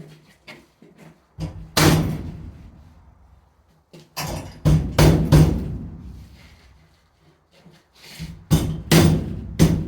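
Hammer blows on steel hat channel, coming in three bunches of sharp, ringing strikes, as the channel is knocked straight and flush before welding.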